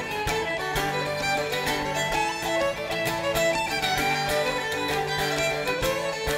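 Irish jigs played live on uilleann pipes and fiddle in quick running notes over a steady drone, with plucked-string accompaniment.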